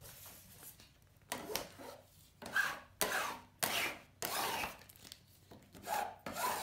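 A flat card rubbed firmly over transfer paper laid on a vinyl lettering sticker, burnishing the letters onto the transfer paper before the backing is peeled: a series of about seven dry scraping strokes of uneven length.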